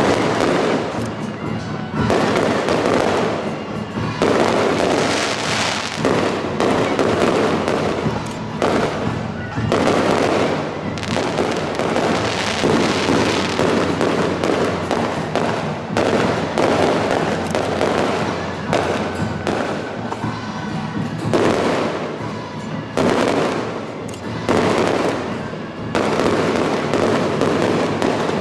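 Fireworks bursting in quick succession: a dense, continuous crackling with bangs that swell every second or two.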